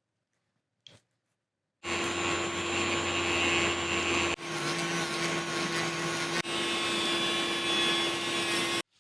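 A small electric motor running steadily with a constant whine, in three back-to-back stretches that start and stop abruptly, from about two seconds in until just before the end.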